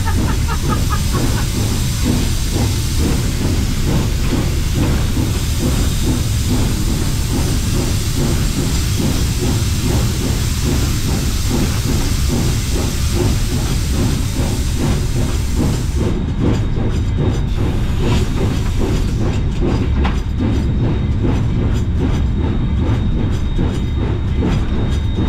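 Narrow-gauge 2-8-2 steam locomotive D&RGW No. 491 running under way, heard from inside its cab: a steady, rapid rhythmic beat of the working engine and running gear with a hiss of steam. The high hiss cuts out about two-thirds of the way through while the rhythm carries on.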